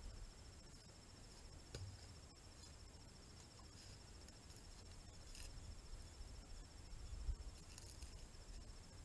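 Faint, steady, high-pitched insect trill over a low rumble, with a few faint ticks and a soft thump about seven seconds in.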